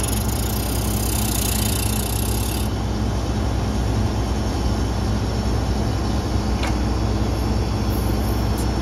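John Deere combine's diesel engine running steadily with a low hum. A high hiss sounds over it for the first couple of seconds and stops abruptly, and there is a brief click near seven seconds in.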